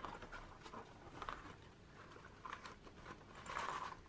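Faint rustling and light scraping of a small paper gift box being handled and its flap opened, with shredded paper filler inside, in a few short bursts, the strongest near the end.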